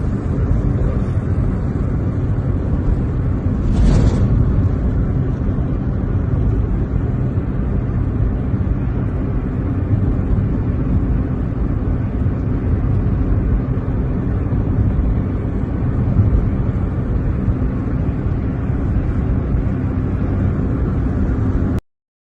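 Steady low rumble of a car's engine and road noise, with a short sharp knock about four seconds in. It cuts off suddenly near the end.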